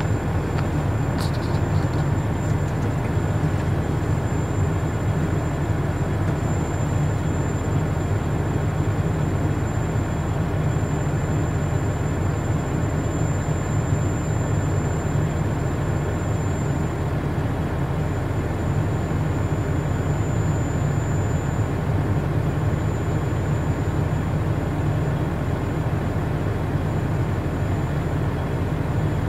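Heavy truck's diesel engine idling steadily, a low drone heard from inside the cab.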